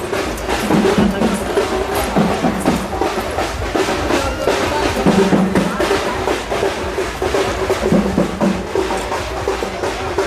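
Festival drums played in a fast, driving rhythm of rapid strokes, with deeper drum beats recurring throughout.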